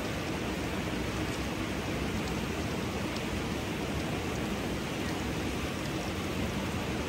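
Hot spring water pouring steadily into a rock pool, a constant rushing splash with faint drips and ticks scattered through it.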